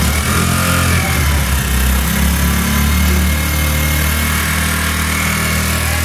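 Honda CD 70's 72 cc single-cylinder four-stroke engine idling steadily.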